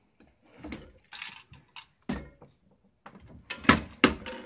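Irregular metallic clinks and knocks from handling a bullet-swaging press and its core sizing die, the two loudest knocks close together near the end.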